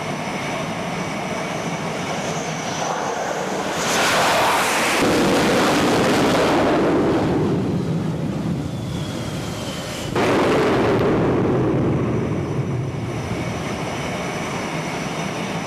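Jet aircraft noise, a steady rush that surges suddenly louder twice, about four seconds in and again about ten seconds in, each surge fading away over a few seconds.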